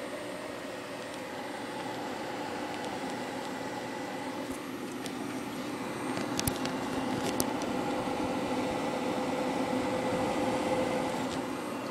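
Cooling fans of an old desktop PC running with the case open: a steady whirring hum with a few tones in it, a little louder in the second half. A few short sharp clicks a little over halfway through.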